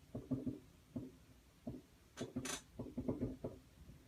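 Fireworks popping in an irregular run of short, muffled bangs, a dozen or more in a few seconds, a couple of them sharper.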